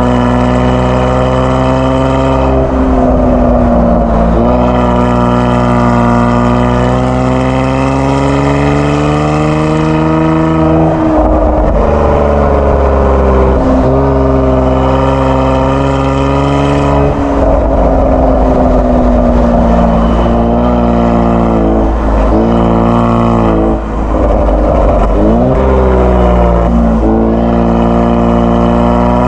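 Kia Stinger 3.3 twin-turbo V6 running through a JSR Performance aftermarket exhaust while driving, the exhaust note rising and falling in pitch several times with sudden drops at gear changes.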